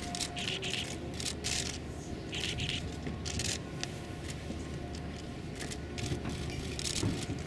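Ambience of a large standing crowd outdoors: shuffling and rustling with scattered short clicks and scrapes, over a steady low background hum.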